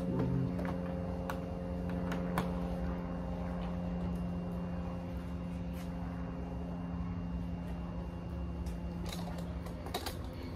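Scattered clicks and snaps of plastic trim clips as a car's plastic top cover panel is pressed back into place, with a few sharper clicks near the end, over a steady low machine hum.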